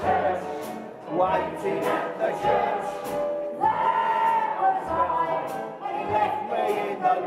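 A singer's voice over a backing track with a steady beat: a low bass note roughly every second and regular cymbal ticks.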